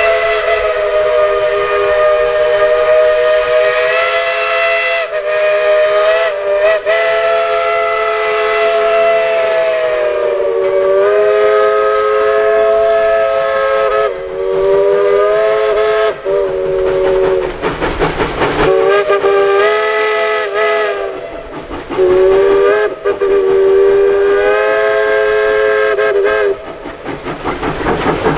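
Narrow-gauge steam locomotive's chime whistle blowing long, drawn-out blasts, several notes sounding together as one chord, broken by short gaps. Near the end the whistle stops and the locomotive's exhaust beats come in, several a second.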